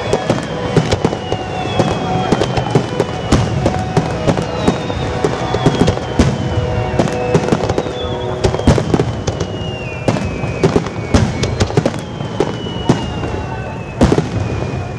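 Aerial firework shells bursting in a rapid, overlapping run of bangs and crackles, several each second, with an especially strong burst near the end.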